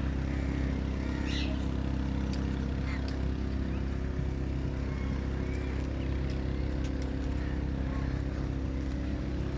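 A steady, low mechanical hum, like an engine or motor running without change, with a few faint short bird chirps over it.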